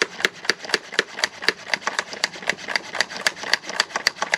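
Hand trigger spray bottle being squeezed rapidly over and over, each pull of the trigger giving a sharp click, about four or five a second.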